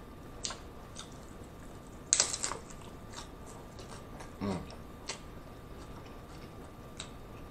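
Crunchy hard-shell taco being chewed close to the microphone: scattered crisp crunches, loudest in a quick burst of several about two seconds in. About four and a half seconds in there is one short low sound that falls in pitch.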